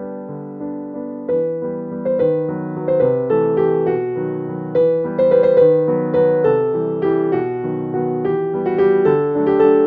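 Background piano music: a gentle melody of struck, fading notes that grows louder a second or two in.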